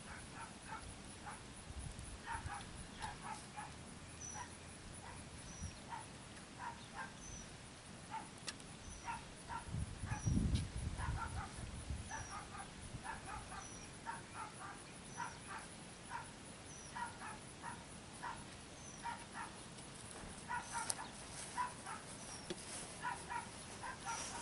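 A dog barking faintly and repeatedly in many short, irregular barks. A brief low rumble about ten seconds in.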